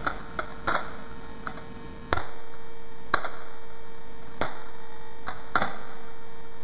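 Balisong (butterfly knife) handles and blade clacking against each other during flipping tricks: a series of sharp clicks at irregular intervals.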